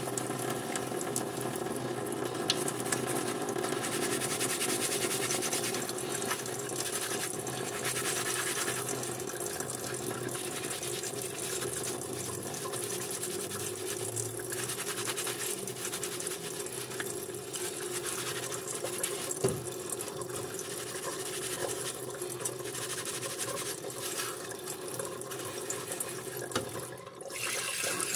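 Soapy sponge scrubbing the metal parts of a caviar serving dish, a repeated scratchy rubbing over a steady hum. Near the end the tap is turned on and water runs into the sink.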